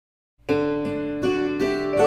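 Instrumental background music starting about half a second in: a melody of plucked-string notes, like a guitar, each note struck sharply and ringing on.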